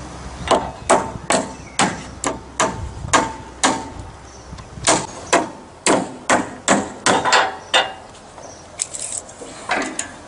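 Hammer driving nails into timber cladding boards: a run of about eight sharp blows, a short pause about four seconds in, then a second run of about eight, two or three blows a second. A few lighter knocks follow near the end.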